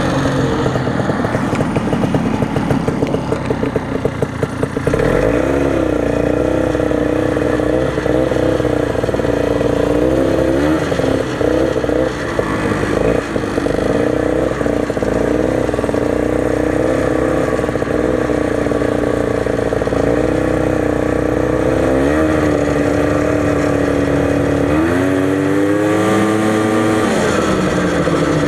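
Old Ski-Doo snowmobile's two-stroke engine running under way, its pitch mostly steady with small rises and dips as the throttle changes, then climbing and falling away again near the end.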